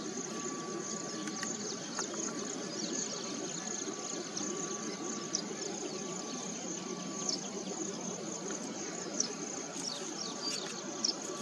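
Steady high-pitched insect drone in the background, with short falling bird chirps here and there, more of them near the end.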